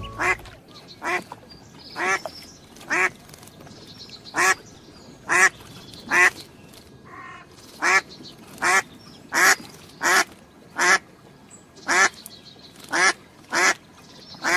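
A duck quacking over and over: about fifteen short, loud quacks at a steady pace of roughly one a second.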